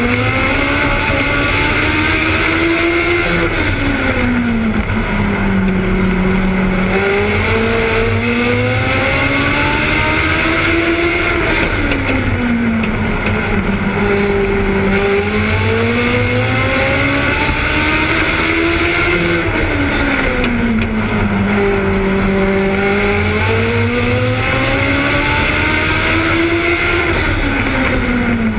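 Onboard sound of a Legends race car's Yamaha four-cylinder motorcycle engine at racing speed. Its note climbs and drops in long swells roughly every eight seconds as the engine speeds up and slows down through the course, over a steady rush of wind.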